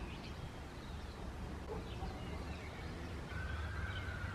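Faint birdsong: scattered short chirps, with a longer whistled note near the end, over a steady low rumble.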